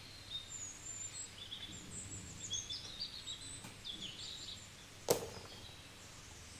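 Birds chirping in short high calls in the background, with a single sharp knock about five seconds in as a plastic toy animal is set down in a plastic tub of water.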